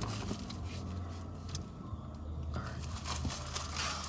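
Steady low hum of a car idling, heard inside the cabin, with scattered light rustles and clicks over it.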